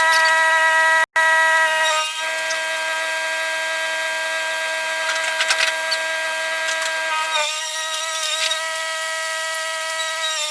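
A machine running at a steady speed with a high, even whine. It cuts out for an instant about a second in, and its pitch shifts slightly about two and seven seconds in.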